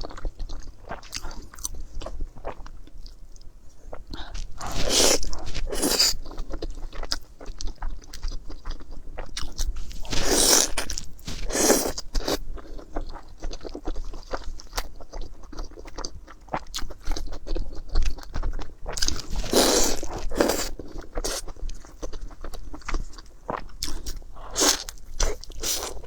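Close-up eating sounds: crunchy bites and chewing, with louder clusters of crunches every few seconds.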